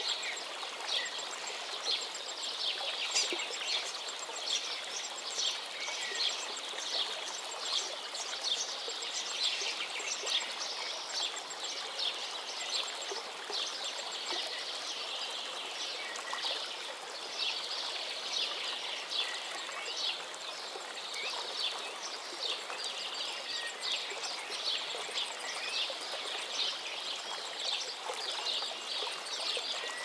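A rocky stream running over stones and small cascades: a steady rush of water with many small bubbling splashes. Birds chirp briefly now and then.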